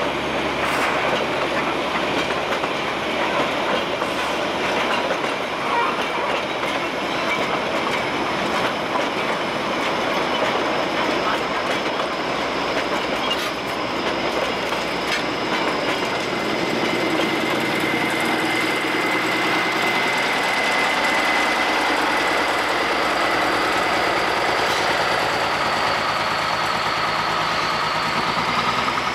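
Narrow-gauge toy-train coaches rolling past close by, their wheels clattering over the rail joints, with a steady high wheel squeal on the curving track that grows stronger in the second half. Near the end a diesel locomotive's engine comes in as it approaches.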